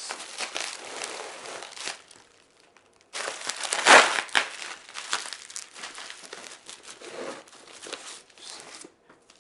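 Packaging crinkling and rustling as items are unwrapped by hand: a short bout, a brief pause, then a longer, louder stretch with a sharp crunch about four seconds in.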